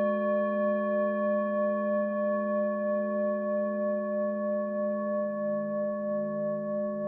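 Singing bowls ringing: long held tones from two bowls sounding together, one struck just before, with a slow pulsing waver and very little fading.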